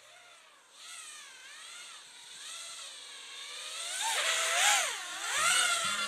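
FPV quadcopter motors whining, the pitch swinging up and down again and again with the throttle and growing louder toward the end.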